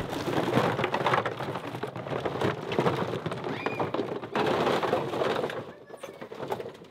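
Dense rustling and crackling of hunting gear being handled: bags and bundles of dry grass brushed and shifted about, dying down near the end.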